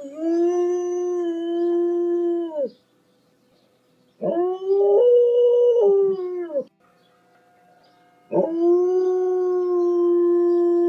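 A dog howling: three long, steady-pitched howls of two to three seconds each with short pauses between them; the middle howl steps up in pitch partway through, then drops back.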